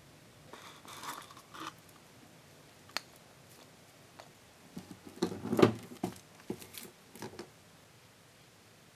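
Hands handling small toys and packaging: a soft rustle about a second in, a single click, then a louder short clatter of knocks near the middle and a few more light clicks.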